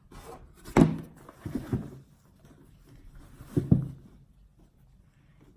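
Knocks and thuds of a box and its packaging being handled during an unboxing: a sharp knock about a second in, two softer ones just after, and another loud one past the middle.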